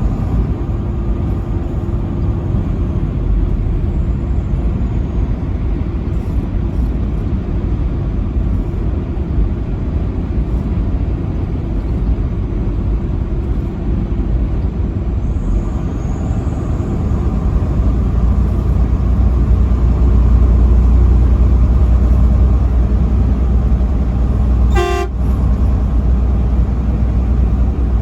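Steady highway driving rumble from the road and engine, swelling louder a little past halfway, with one short truck horn blast near the end.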